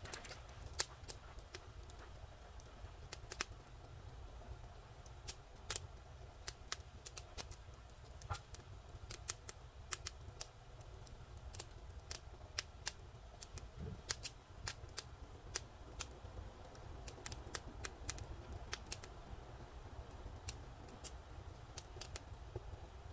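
Wood fire crackling: irregular sharp pops and snaps from burning firewood, several a second at times, over a steady low rumble.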